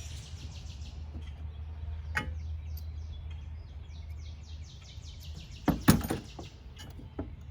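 Sharp metal clanks and knocks of hand tools on the water heater's fittings, a few scattered, the loudest cluster about six seconds in. Behind them a bird gives two rapid trills of high chirps, and a low steady hum fades out a little before five seconds.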